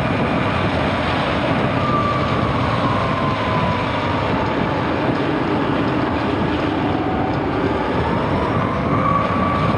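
Arcimoto FUV electric three-wheeler driving on a wet road: steady wind and wet road noise in the open cabin. Under it, the electric drive's faint whine falls in pitch as the vehicle slows, then rises again near the end as it speeds up.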